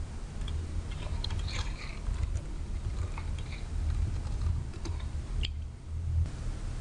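Typing on a computer keyboard: scattered key presses entering a login name and password, over a low steady hum.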